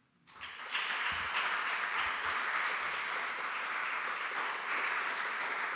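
Audience applauding. The clapping starts about half a second in, swells within a second to a steady level, and holds there.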